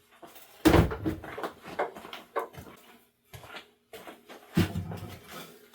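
Knocks and clatters of tools and small objects being handled and set down on a workbench, the loudest about a second in and again near the end, over a faint steady hum.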